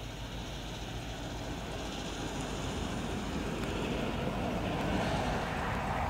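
A vehicle passing on a nearby road: a steady rush of road noise that swells to its loudest about five seconds in, sliding lower in pitch as it goes by, then starts to fade.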